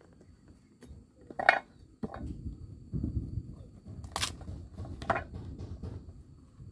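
A knife cutting through a green-skinned pumpkin, with a sharp cut about one and a half seconds in. Then a low rustling of hands as the pumpkin is pried open, splitting with a sharp crack about four seconds in and another a second later.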